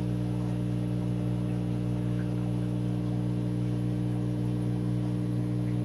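Steady electrical hum of running aquarium equipment such as a filter or pump, with a faint hiss and no change in pitch or level.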